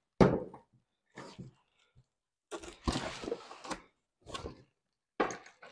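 Unboxing noises: cardboard and plastic packaging rustling and crinkling as parts are taken from a box, with a few short knocks and clicks in between.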